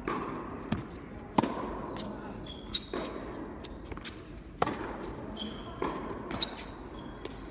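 Tennis rally: sharp pops of rackets striking the ball, several times, with short high squeaks in between the hits.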